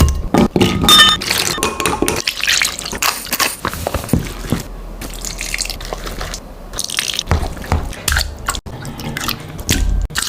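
Kitchen cooking sounds: a quick run of sharp clicks and knocks, then liquid dripping and splashing with scattered clicks of utensils.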